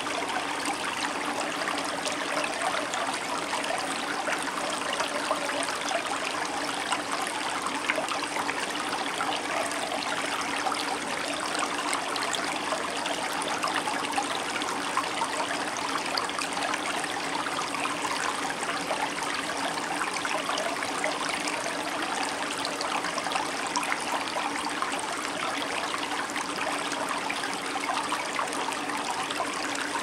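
Shallow stream running over a stony, cobbled bed: a steady babble of water with many small trickles and splashes.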